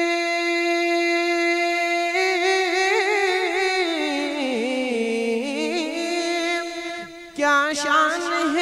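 A man singing an Urdu naat unaccompanied, drawing one word out into a long held note and then a wavering melismatic run that falls and climbs again. There is a short break about seven seconds in before the singing goes on.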